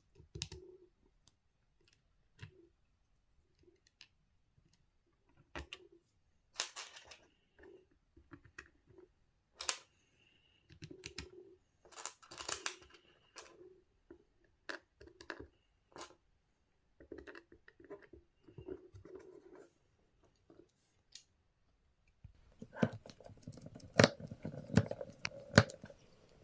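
Scattered clicks, scrapes and light knocks of small tool parts being handled, with a busier run of sharper clicks and knocks near the end.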